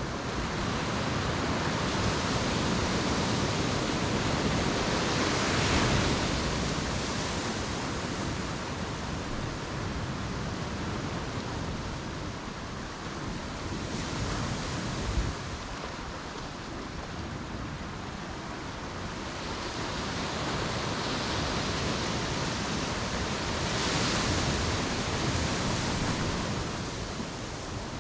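Ocean surf breaking on a beach: a continuous wash of waves that swells up with a big breaking wave about six seconds in and again near the end, and eases off in between. A brief knock about halfway through.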